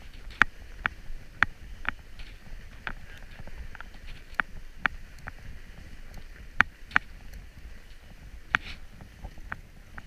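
Fat bike riding over packed snow: a low steady rumble of the wide tyres on the trail, with sharp irregular clicks and rattles from the bike over bumps.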